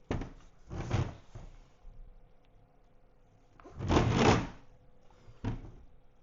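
Handling noises: a few short bumps and scrapes, the loudest and longest about four seconds in, as the filament dryer is handled.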